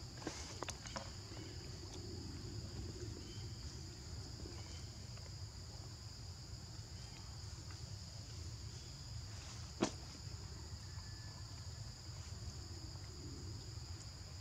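Steady shrill insect chorus, a continuous drone at two high pitches, with one sharp click about ten seconds in.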